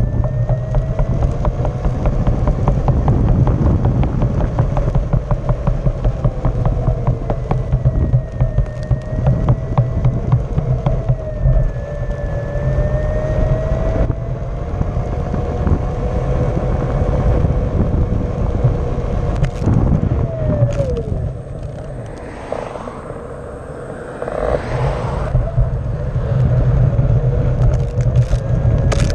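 Onewheel XR's electric hub motor whining as it rides, its pitch drifting with speed, over steady tyre rumble on asphalt heard right beside the wheel. About 21 seconds in the whine drops in pitch as the board slows, and the rumble eases for a few seconds before picking up again.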